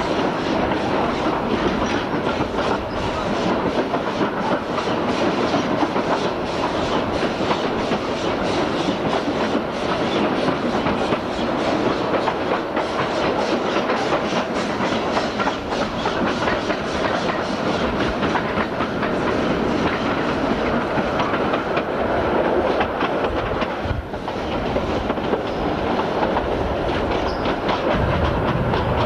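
Narrow-gauge steam train hauled by Beyer, Peacock 2-4-0 tank engine No. 11 'Maitland', running at speed and heard from an open carriage window. The wheels clatter over rail joints and the coaches rattle steadily, with a short dip about three-quarters of the way through.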